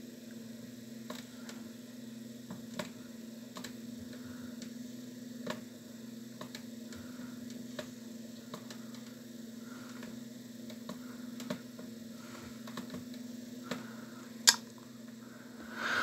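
Irregular clicks of a computer mouse being used to move around a map, one sharper and louder near the end, over a steady low hum.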